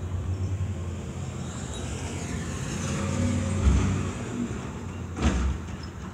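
UPS delivery truck driving past and jolting over bumps in the road: a low rumble that builds, with a loud thump a little over halfway through and a second thump about a second and a half later.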